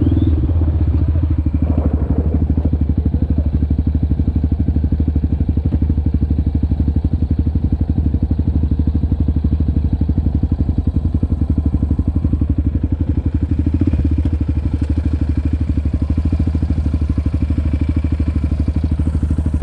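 Quad ATV engine running steadily at low revs, with an even, fast firing pulse.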